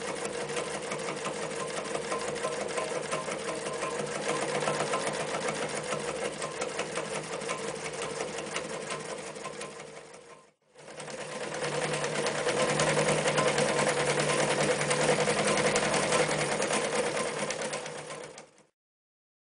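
Reads Z233 electric zigzag sewing machine running steadily, stitching through four layers of sailcloth. It slows and stops about halfway, starts again a moment later, and stops shortly before the end.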